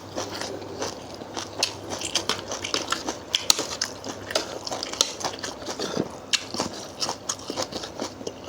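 Close-up eating sounds: chewing and biting into a spicy Thai seafood salad of instant noodles, squid and wood ear mushroom, with many small irregular crunches and clicks.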